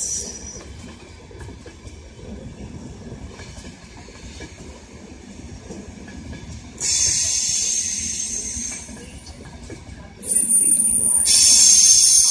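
Train wheels squealing against the rails over a low rolling rumble of a train moving slowly through the station. A high-pitched squeal comes in about seven seconds in for two seconds, then returns louder from about ten seconds in with a thin steady whistle-like tone.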